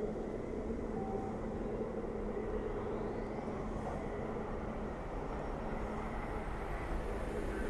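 Train approaching on the main line: a steady low rumble that begins to grow louder near the end.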